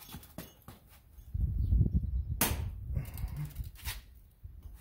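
Clothing rubbing against the microphone, a low rumble that starts about a second in and lasts a couple of seconds, with two sharp knocks about a second and a half apart.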